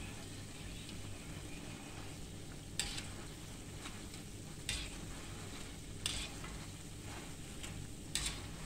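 Sweet dough balls deep-frying in hot oil with a steady sizzle. A wire skimmer stirs them, clicking against the pan about four times.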